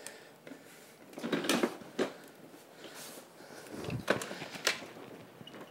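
Scattered clunks, knocks and scraping of a GoGo Elite mobility scooter's frame and transaxle being handled as the scooter is tipped onto its side and the transaxle is wiggled to line up its connector. There are a few sharp knocks about two seconds in and again around four seconds.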